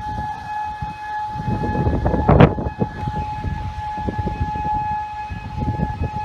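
Outdoor tornado warning siren sounding one steady tone, with wind rumbling on the microphone and a single sharp knock about two and a half seconds in.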